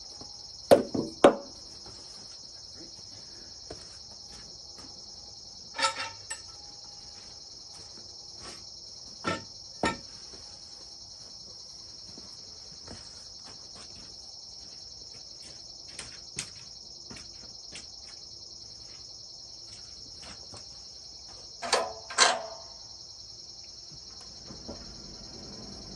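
Steady high chirring of insects such as crickets, with a few sharp knocks and clunks scattered through it: a quick cluster about a second in, more around six and ten seconds, and a louder pair near the end.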